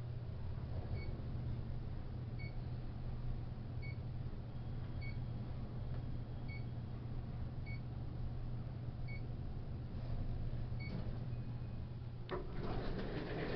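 Otis passenger elevator descending, with a steady low hum from the ride and a short electronic beep as the car passes each floor, eight beeps about a second and a half apart. Near the end the car arrives and the doors open to a burst of louder noise.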